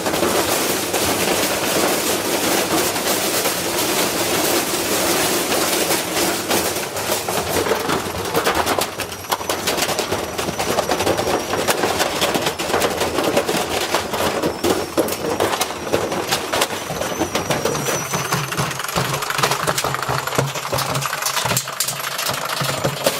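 Washing machine spinning with a deliberately heavy load in the drum, banging and rattling rapidly and violently as it shakes itself apart. About 17 seconds in the banging thins out and a steady motor hum comes through under the knocking.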